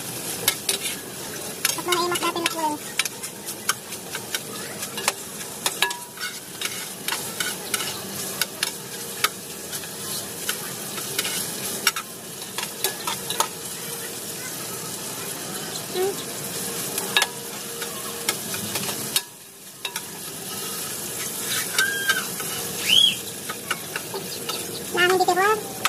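A spatula stirring and scraping food frying in a pot, with steady sizzling and frequent clicks of the utensil against the pot. The sound drops out briefly about two-thirds of the way through.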